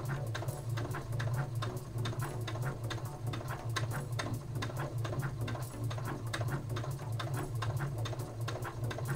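Uten 2685A computerised sewing machine stitching a seam: a steady motor hum with a rapid, even ticking of the needle, running without a stop.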